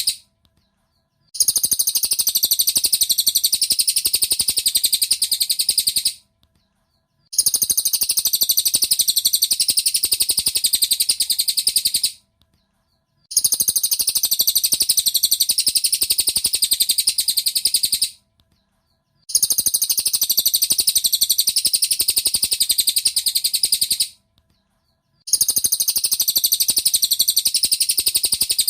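Cililin bird song: a very fast, high-pitched chattering trill in stretches of about five seconds, each broken off by about a second of silence and repeating the same way, as a looped training recording (masteran).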